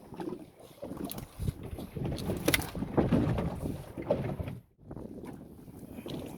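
Wind buffeting the microphone on a small fishing boat, with scattered knocks and clicks; the sound drops out almost entirely for a moment about three quarters of the way through.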